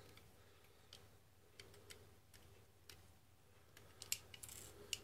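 Faint, scattered clicks of a cutter knife cutting small plastic pieces off a model-kit sprue, with the loudest click about four seconds in.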